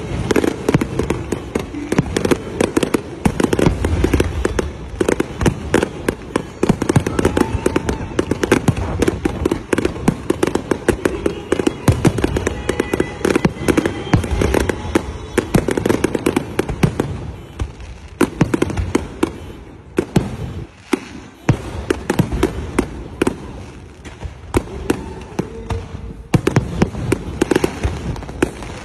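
Fireworks display: a dense barrage of aerial shells bursting and crackling, the bangs coming many times a second. It thins briefly about two-thirds of the way through, then picks up again.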